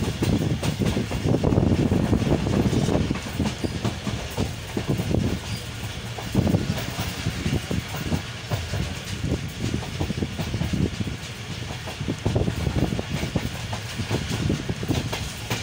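Railway passenger carriage running along the track, heard at an open window: a steady low rumble of the wheels with irregular clickety-clack over the rails.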